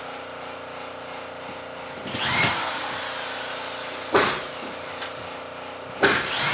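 Corded drywall screw gun driving screws into a drywall sheet: the motor starts about two seconds in with a high whine that falls in pitch, a sharp click follows at about four seconds, and a second run starts near the end.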